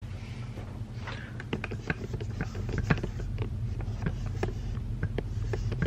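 Handling noise close to the microphone: irregular light clicks and taps over a steady low hum.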